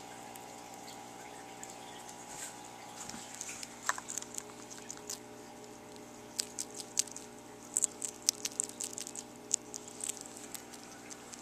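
Sugar glider chewing a mealworm: quick, crisp crunching clicks, scattered at first and coming thick and fast from about halfway through, over a steady low hum.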